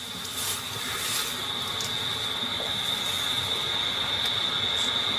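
A steady high-pitched whine over an even hiss, slowly getting louder.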